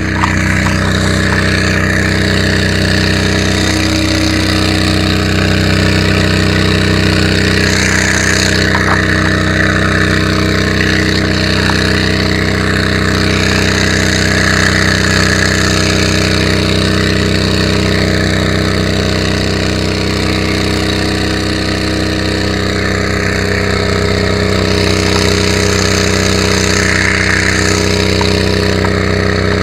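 Fire truck's engine running steadily at the scene: a constant deep hum with a faint regular pulse.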